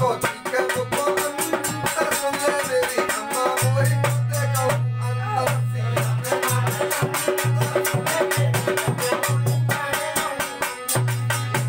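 Instrumental passage of a Rasiya folk song: harmonium melody and drone over a dense dholak rhythm, with the jingling strokes of a chimta (fire-tongs).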